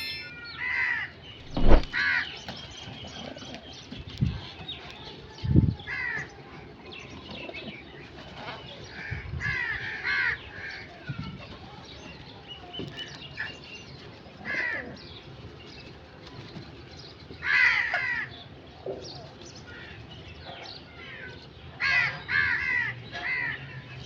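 Crows cawing on and off, in short bursts of harsh calls that come in clusters every few seconds, with several calls close together near the end. A few dull low thumps in the first several seconds, the loudest of them about two seconds in.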